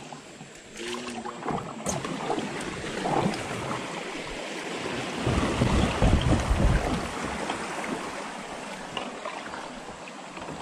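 River water rushing over a shallow riffle as a kayak drifts through it, with wind buffeting the microphone, heaviest about halfway through.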